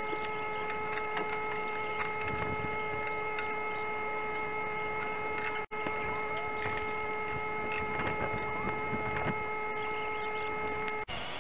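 A steady machine hum holding a few fixed pitches over a rough rumble, cut off for an instant about halfway through and again just before the end.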